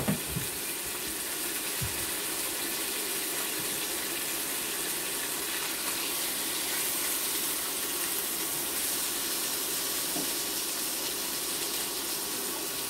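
Bacon frying in a pan, a steady sizzling hiss, with a sharp clink of a utensil right at the start.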